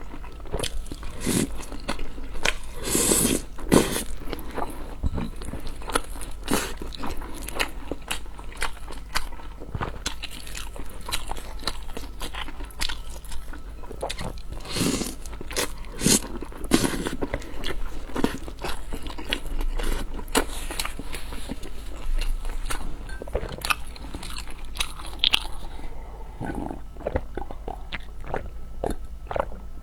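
Close-miked eating: crunchy bites and chewing of food, many irregular crackles and clicks throughout.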